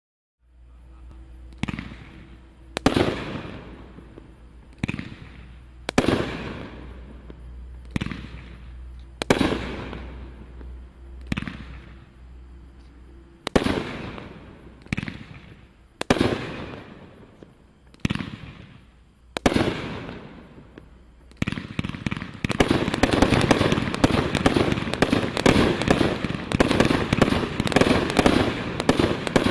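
A Brothers Pyrotechnics 'Medalist' 500 g 30-shot cake firing. Single shots come about every one to two seconds, each with a burst that fades away. About twenty-two seconds in, it breaks into a rapid, dense barrage for the finale.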